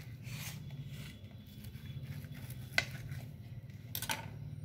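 Kitchen knife cutting through an omelette on a paper plate, scraping and giving a sharp tap against the plate, then set down with a couple of clicks on the stone countertop near the end, over a low steady hum.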